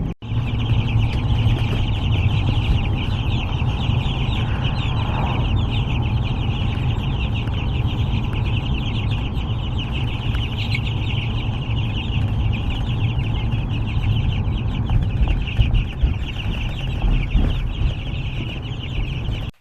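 A crowd of young chicks peeping continuously, many short high cheeps overlapping, over a steady low rumble.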